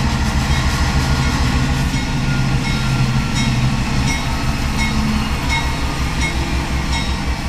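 CN 2582, a GE Dash 9-44CW diesel locomotive, running as it rolls slowly past. Its engine gives a steady low drone, and light regular clicks come in from about two seconds in.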